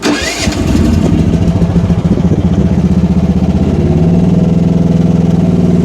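Gasoline engine of a Rippa R10 mini excavator starting and then running steadily; its speed steps up a little about four seconds in.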